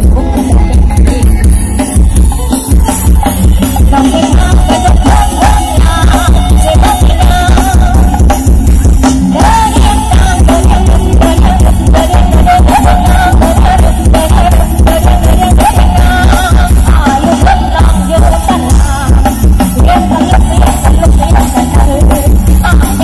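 Very loud dance music from a rot hae (Thai parade sound truck) loudspeaker system, with a heavy steady bass beat and a melody line over it.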